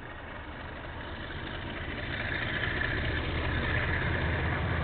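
Diesel locomotive approaching, its engine rumble and the noise of the train growing steadily louder.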